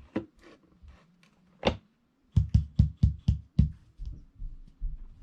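Hard knocks and clicks from a small loudspeaker's enclosure being handled: a few light clicks, one sharp knock, then a quick run of about six heavy knocks with a deep thud to them, followed by softer knocks.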